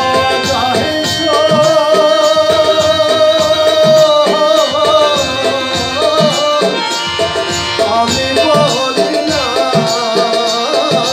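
Bangla folk song performed live: a male voice sings long held, wavering notes over harmonium, while tabla plays a steady rhythm.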